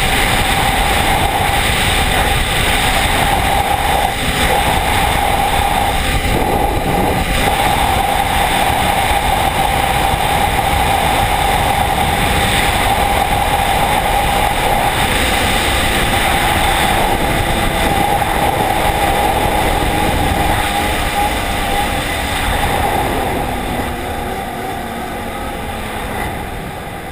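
Arctic Cat ZR4000RR snowmobile running flat out across lake ice, its engine holding a steady high note under heavy wind rush on the microphone. In the last few seconds the engine note drops and the sound eases off as the sled slows.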